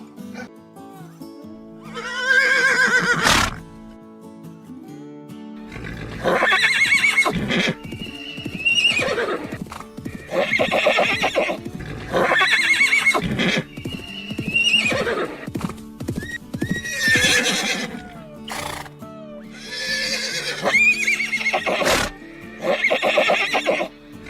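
Horse neighing, about nine separate whinnies each one to two seconds long, over background music with steady held tones.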